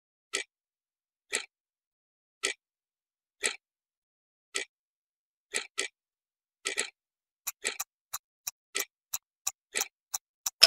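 Countdown timer sound effect: a clock ticking about once a second, quickening to about three ticks a second in the last few seconds as the answer time runs out.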